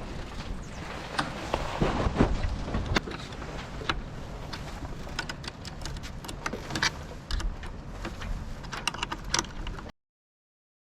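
Wind rushing over the microphone on a sailing yacht in strong wind, with scattered sharp clicks and knocks; the sound cuts off abruptly near the end.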